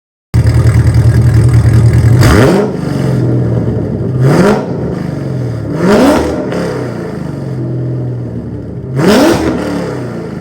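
V8 engine breathing through catless long-tube headers and an open-valve full exhaust, idling and then revved in four short blips, each rising and falling back to idle. The sound cuts in suddenly just after the start.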